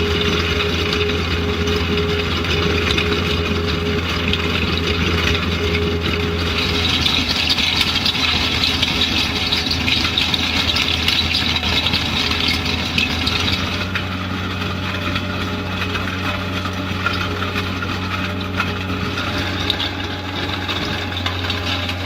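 Engine of road construction machinery running steadily, with a low hum under a mechanical noise; the sound changes character about two-thirds of the way in.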